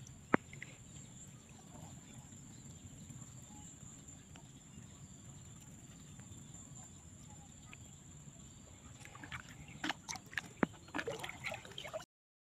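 Water splashing and dripping as a fishing net is handled in shallow paddy water. It is faint and steady for most of the stretch, with one sharp click near the start and a cluster of sharper splashes and clicks near the end, and then the sound cuts off abruptly.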